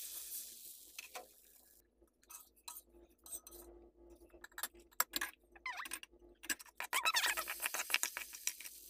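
Metal ladle clinking and scraping against a hot cast-iron dosa tawa as dosa batter is poured and spread. Light sizzling picks up near the end.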